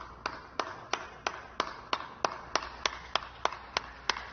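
Steady ticking: sharp, evenly spaced clicks, about three a second.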